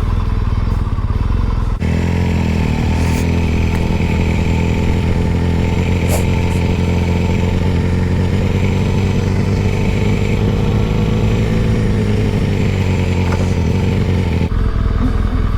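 Motorcycle engine running while riding along, a steady engine note that shifts in character about two seconds in and again near the end.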